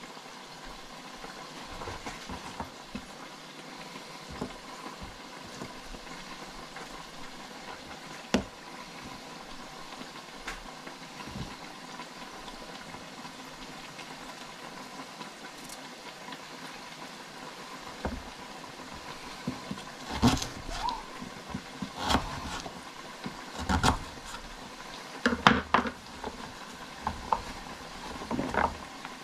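Kitchen knife cutting a root vegetable on a wooden chopping board, with sharp knocks of the blade and pieces on the board: one about a third of the way in, then a run of them through the second half, over a steady low hiss.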